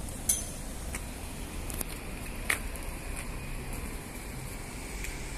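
Street background with a steady low rumble, broken by two sharp clicks, one just after the start and one about two and a half seconds in.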